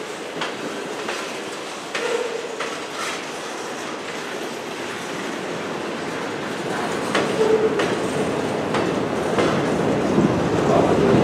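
Freight train cars (open-top hoppers and gondolas) rolling past, their wheels clicking over rail joints, with a couple of brief wheel squeals. The noise grows louder toward the end.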